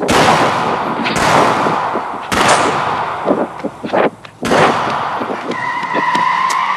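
Four loud bangs at uneven intervals, each trailing off into a rushing noise, followed near the end by a steady high tone.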